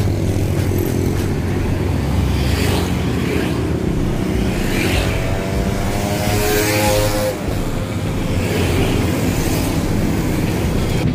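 Road traffic passing close by: motorcycles and cars going by one after another in several swells, with one passing engine's note standing out about seven seconds in.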